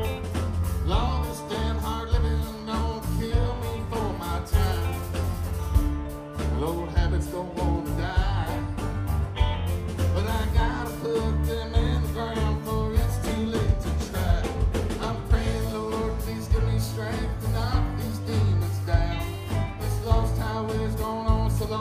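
Live country-rock band playing: a steady drum beat, bass, electric and acoustic guitars and keyboard, with a male lead vocal singing over it.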